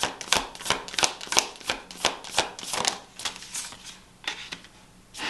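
A deck of tarot cards being shuffled in the hands, a sharp card slap about three times a second. The shuffling stops about three and a half seconds in, and a few softer card sounds follow.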